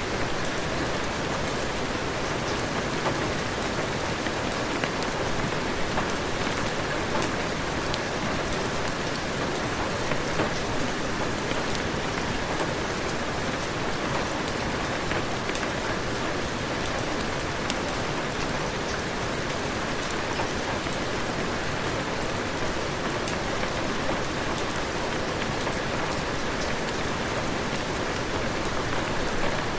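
Heavy rain falling steadily, a dense even hiss with many small, sharp ticks scattered through it.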